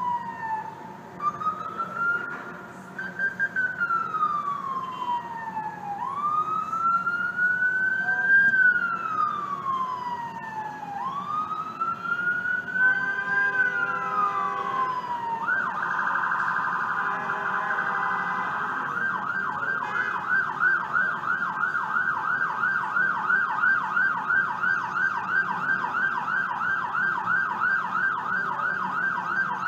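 Ambulance's electronic siren on a slow wail, each sweep rising quickly and falling slowly over about five seconds. About halfway through it switches to a fast yelp, warbling rapidly up and down.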